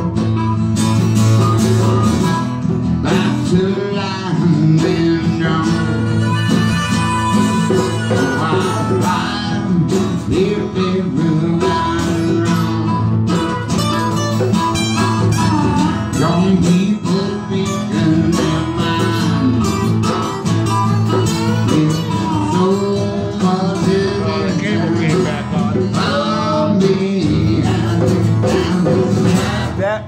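Harmonica played into a microphone, bending and sliding between notes, over two strummed acoustic guitars in a live acoustic jam.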